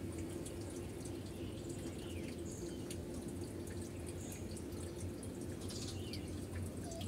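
A steady low machine hum, with faint light ticks scattered over it.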